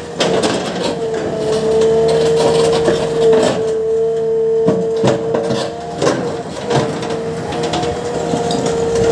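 JCB excavator working, its engine and hydraulics running with a steady whine, while irregular knocks and clatters come from the bucket scooping and dumping a soil-and-stone mixture.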